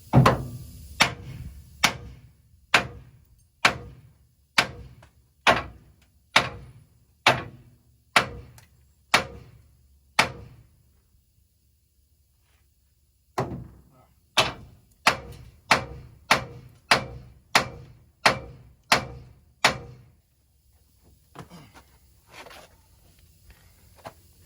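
Heavy hammer blows on the truck's steel bumper mounting, struck about once a second with a brief metallic ring after each. The hammering is knocking the bumper loose. About ten blows, a pause of a few seconds, then another run of about eight blows.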